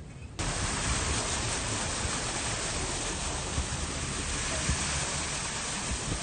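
Steady, even rush of water, such as heavy rain or flowing floodwater, cutting in abruptly about half a second in.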